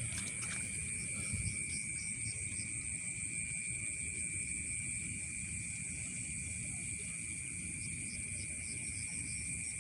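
Night insect chorus: a steady, unbroken high-pitched trilling at two pitches, with faint repeating chirps above it and a low rumble underneath.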